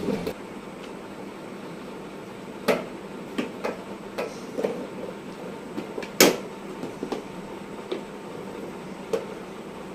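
Hard plastic toy ice cream truck parts being handled and pulled apart: scattered clicks and knocks, the two loudest about three and six seconds in, over a faint steady hum.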